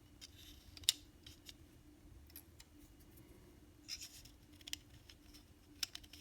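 Scattered small clicks and taps as tiny plastic porthole window pieces are handled and pressed into an N scale locomotive shell, with the sharpest click about a second in and a cluster near the end. A faint steady hum runs underneath.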